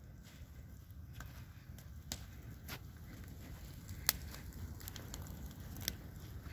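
Bonfire of burning wooden boards crackling, with several sharp pops, the loudest about four seconds in, over a low rumble.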